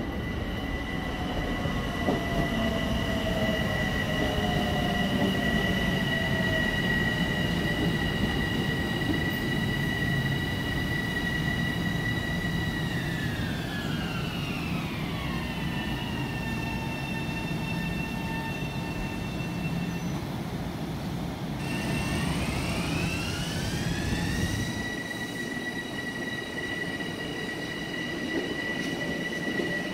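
Bombardier M7 electric multiple-unit train running under a rumble of wheels on rail, its propulsion giving a steady high whine of several tones. About halfway through, the whine glides down in pitch as the train slows, then breaks off. A moment later a whine glides back up in pitch as a train accelerates, and settles into a steady tone.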